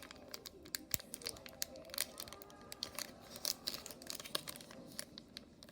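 Foil wrapper of a Pokémon booster pack crinkling and being torn open by hand, a run of quick irregular crackles.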